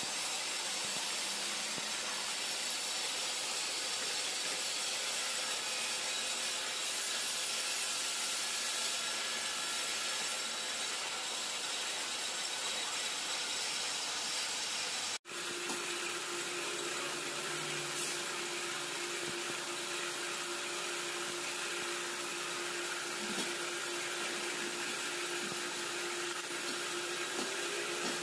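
Steady hiss of workshop machinery running, with a break about halfway through, after which a steady hum joins the noise.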